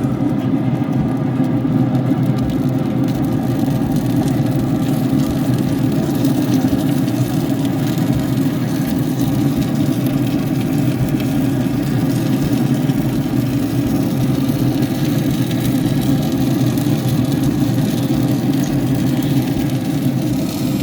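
Steady low hum of a motor or fan running, unchanging throughout.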